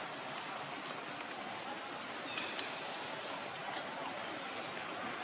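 Steady outdoor background hiss with faint distant voices. A couple of sharp clicks come about two and a half seconds in.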